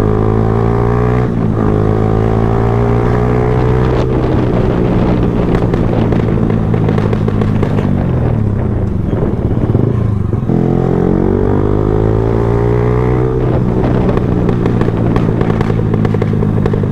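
Yamaha R15M's single-cylinder engine and exhaust running on the move. The pitch holds steady, sinks slowly to a low point about ten seconds in, then climbs again.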